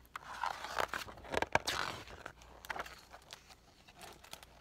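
Pages of a picture book being turned and handled: paper rustling and crinkling with sharp crackles, loudest in the first two seconds and then tapering to a few faint rustles.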